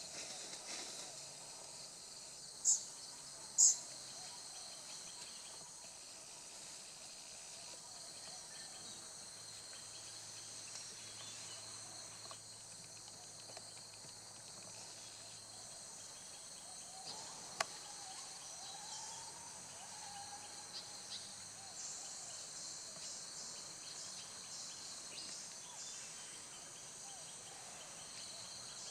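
Steady chorus of forest insects buzzing in several high bands, with two short shrill calls about three seconds in and a few faint gliding calls and a click past the middle.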